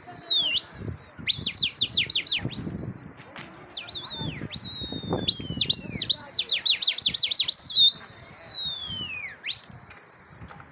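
A pigeon flyer's loud human whistling to the flock in flight: long high held notes that swoop sharply downward, broken twice by quick runs of about five falling notes, and ending in a long falling glide.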